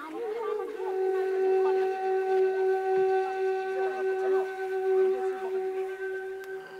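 Background music: a flute holding one long, steady note after a short slide up at the start.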